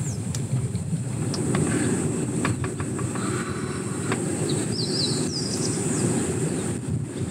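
Wind rumbling on the microphone outdoors, with a short run of quick falling bird chirps about five seconds in.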